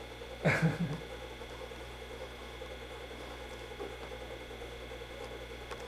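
Quiet, steady hum and hiss of the room and recording, with one short sound about half a second in.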